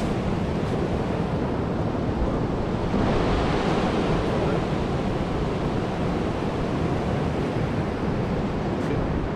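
Surf washing on the beach mixed with wind on the microphone, a steady rush that grows a little louder and brighter about three seconds in.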